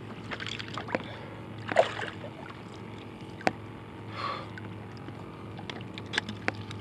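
Water lapping and sloshing against a kayak hull in short swishes, with scattered small clicks and knocks over a low steady hum.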